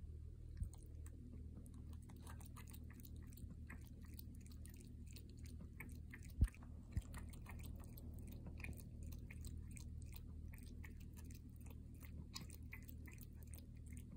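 Siamese cat lapping water from a glass bowl: a quick, faint run of small wet ticks, with two sharper knocks about six and a half and seven seconds in.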